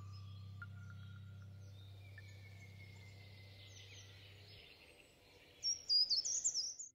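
Closing music fading out: a low drone dies away about two-thirds through under faint held tones. Near the end comes a quick run of bird chirps, the loudest sound here, which cuts off suddenly.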